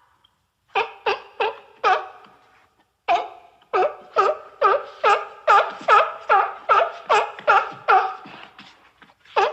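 A seal barking: four quick barks, a short pause, then a long run of rapid barks at about three a second.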